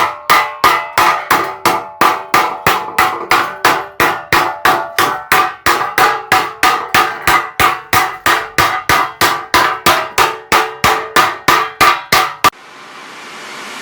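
Hammer beating a steel sheet over and over, about three ringing blows a second, shaping the sheet into a curve. The blows stop near the end and a rising hiss follows.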